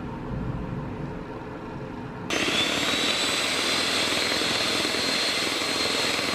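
Electric hand mixer whipping cream in a bowl, starting suddenly about two seconds in and running steadily with a high motor whine.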